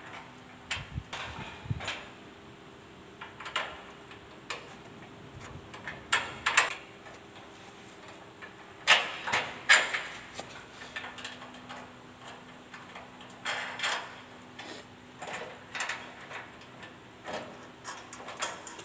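Nuts and bolts being fitted and tightened on a steel hospital bed frame as the wheel legs are bolted on: irregular metal clicks, clinks and knocks, with the loudest few about nine to ten seconds in.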